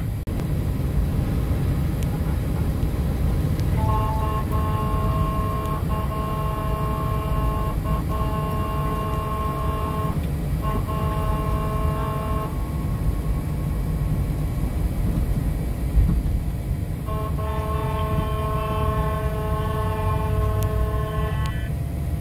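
A vehicle horn held in long steady blasts: one of about eight seconds with a short break partway, then another of about four seconds. Underneath is steady low road rumble inside a moving pickup's cabin.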